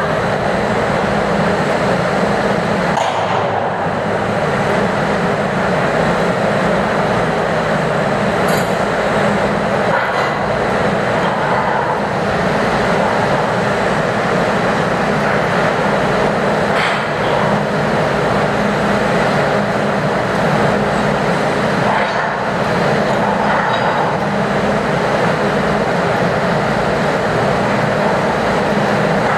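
Steady drone of heavy machinery aboard a container ship during crane unloading, with a low hum and a few faint metallic knocks.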